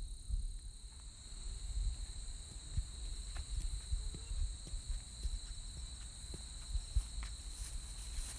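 Insects chirring steadily in the grass, a high-pitched even sound, with wind rumbling on the microphone and faint footsteps on a paved path.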